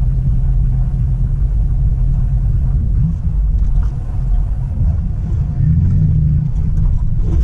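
Dodge Ram pickup's engine heard from inside the cab: a low steady rumble at a standstill, rising in pitch about three seconds in as the truck pulls away from the light, with road noise while it drives on.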